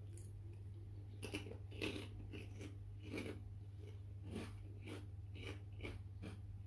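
A person eating close to the microphone, chewing and biting with about a dozen short, irregular crunches over a steady low hum.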